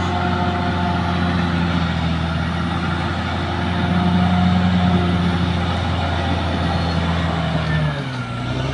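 Caterpillar D6R XL bulldozer's diesel engine running steadily. Near the end its pitch sags briefly, then comes back up.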